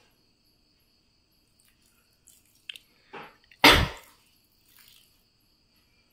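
Quiet kitchen handling as food colouring is poured over rice in a pot: a few soft clicks and one louder brief thump a little past halfway.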